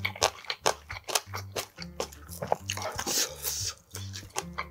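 Close-miked chewing of a full mouthful of food, with many quick crunchy clicks. Soft background music with low bass notes runs underneath.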